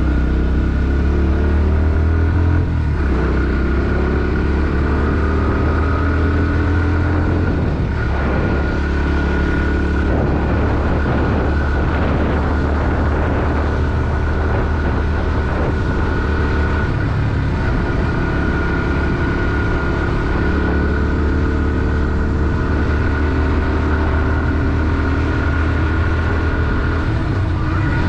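Bajaj Pulsar NS160's single-cylinder four-stroke engine running under load on the move. Its pitch climbs and then drops about three seconds in, and shifts again a few times later, as with gear changes.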